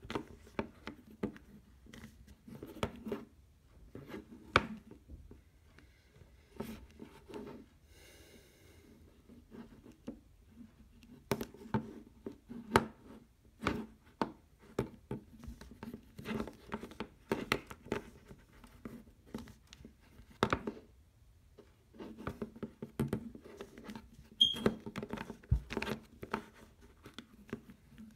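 A plastic 3x3 Rubik's cube being twisted again and again: quick, irregular clicks and clacks from the layers turning, with short pauses between runs of moves.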